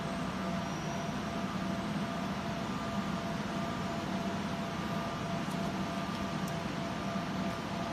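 UV laser marking machine running while it engraves a logo into a glass tumbler: a steady fan-like hum with a faint constant whine over it.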